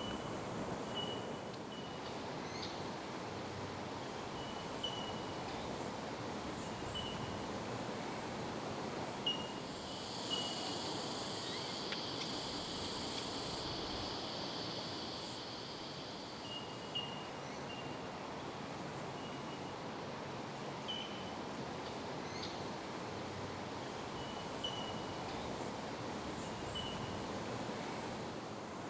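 Bell miners (bellbirds) giving short, high, bell-like "tink" notes, single notes scattered every second or two, over a steady background hiss. Some seconds before the middle a higher steady hiss comes in for about six seconds, then fades.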